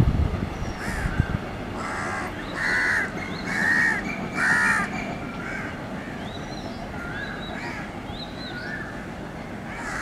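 Crows cawing: a run of four harsh caws between about two and five seconds in, the loudest sounds here. Under them a train's low wheel rumble and clatter fades in the first second or so, and smaller birds chirp throughout.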